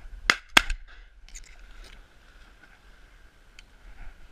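Two shotgun shots fired in quick succession, about a third of a second apart, each a sharp loud crack with a short tail.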